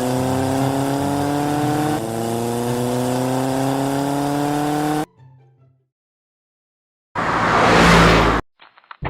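A car engine sound effect accelerating, its pitch climbing steadily with a small drop about two seconds in, like a gear change, then cutting off suddenly about five seconds in. After a second or so of silence comes a loud rushing burst of noise lasting just over a second.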